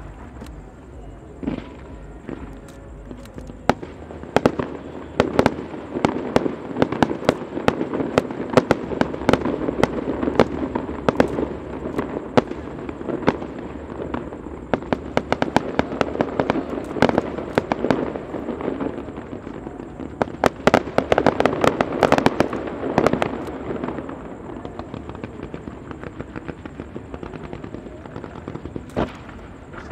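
Fireworks display: rapid, irregular bangs and crackles of bursting shells. They come thickest in a long volley a few seconds in and again past the middle, then thin out to a few last pops near the end.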